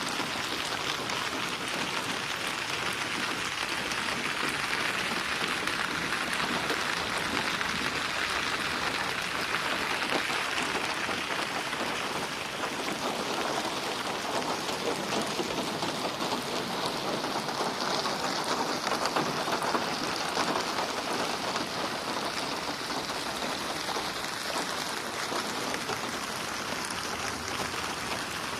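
Steady rain falling, a dense even hiss with many close drops splashing, and no thunder.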